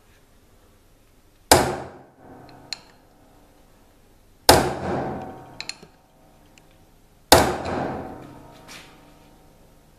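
Hammer striking a small steel chisel held against a knife blade: three sharp metal-on-metal blows about three seconds apart, each ringing and fading over about a second, with a few light clicks between.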